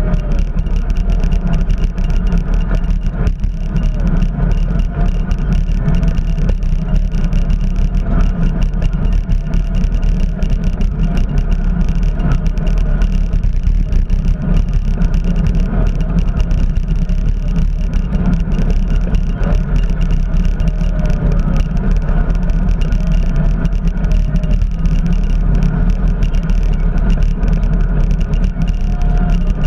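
Wind buffeting the microphone of a camera riding on a moving bicycle: a steady, loud low rumble.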